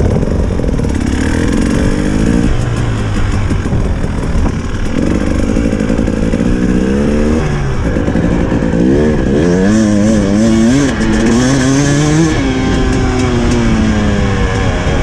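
Dirt bike engine under way off-road, its pitch climbing and dropping again and again as it is shifted and throttled, then wavering quickly up and down for a few seconds about two-thirds of the way through.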